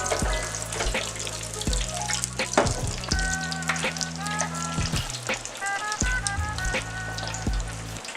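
French fries frying in a deep fryer basket: hot oil sizzling with a steady hiss and many small pops.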